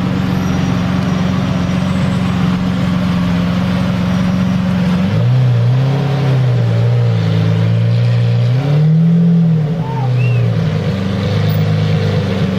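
Lamborghini Murciélago V12 with a Capristo exhaust, running at a steady note. About five seconds in the note drops, then rises and falls gently in small blips of the throttle, and goes back to the higher steady note near the end.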